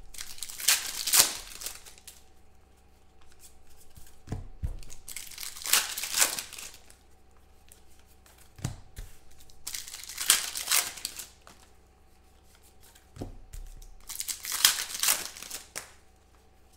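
Foil card packs being ripped open by hand, four tearing, crinkling rips about four to five seconds apart. A few soft knocks fall between the rips.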